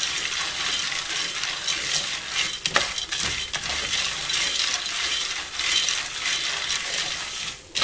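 Dried corn kernels toasting in oil in a metal pot, sizzling steadily while a wooden spoon stirs and scrapes them, with one sharper click just under three seconds in. The kernels have almost all burst already, so they are hardly popping: the toasting is nearly done.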